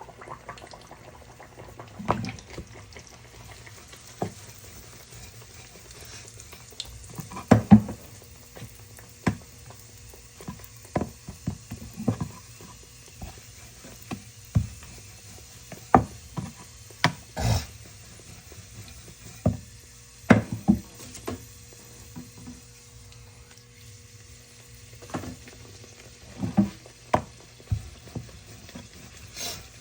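Kitchen work: irregular knocks and clinks of utensils and cookware over a faint steady hiss.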